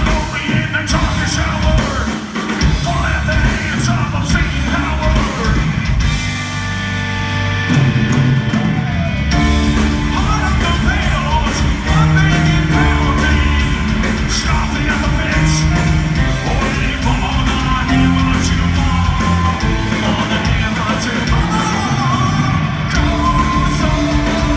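Live heavy rock band, with electric guitar, bass, drum kit and keyboard, playing loudly while the vocalist sings and yells. About six seconds in the band holds a sustained chord for a few seconds, and then the full band with pounding drums comes back in.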